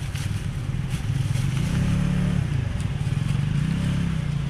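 A motor vehicle engine running close by, its pitch rising about a second and a half in and easing off, then rising briefly again near the end.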